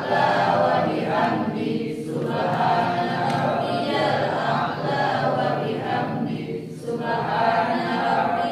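A group of students reciting Arabic prayer text aloud in unison, a chant-like mass of voices with short breaks for breath about two seconds in and again about seven seconds in.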